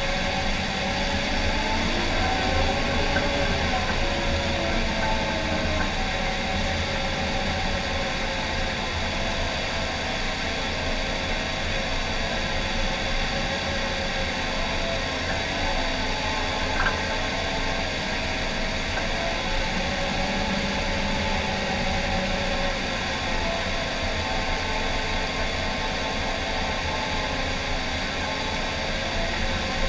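John Deere 750K crawler dozer running steadily while pushing dirt with its blade: diesel engine and drive noise with tones that waver slowly in pitch, and a single short click about 17 seconds in.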